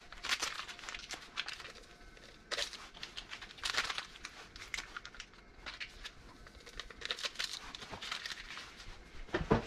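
Stick packets of powdered chicken bone broth crinkling as they are handled, torn open and shaken out, in short irregular rustles.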